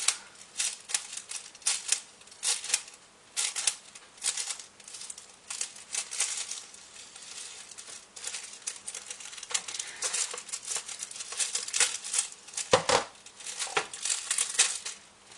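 Plastic film on a frozen TV-dinner tray being cut and crinkled: a string of short, irregular scratchy strokes, with a louder knock near the end.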